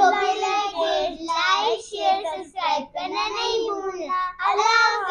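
Children's voices speaking in a sing-song, chanting way.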